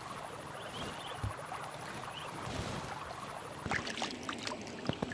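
Steady outdoor background hiss, then from nearly four seconds in, scattered small splashes and sloshes of water as hands dip into a flooded rice paddy to pick up apple snails.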